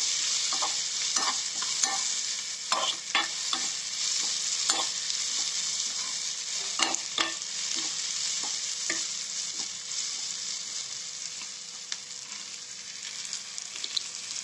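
Onions, tomato and green chillies sizzling in hot oil in a non-stick kadai while being stirred, the spatula knocking and scraping against the pan at irregular moments. The clicks come thick for the first several seconds and thin out later, and the sizzle eases slightly near the end.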